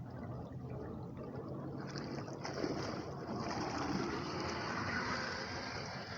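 Water splashing and churning as an Axial SCX10 II RC crawler's bolt-on paddle wheels spin, driving the floating truck forward. The churning grows stronger about two seconds in.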